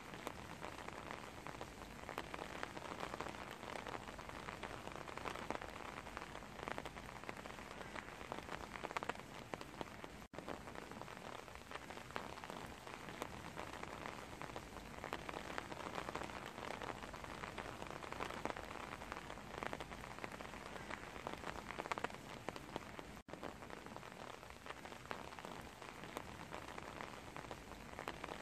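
Steady rain falling into standing water on wooden deck boards: a constant hiss of many small drop splashes. The sound drops out for an instant twice.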